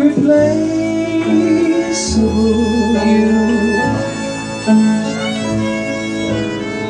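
Live acoustic jazz ballad: a violin plays a slow melody with vibrato over upright piano chords and double bass.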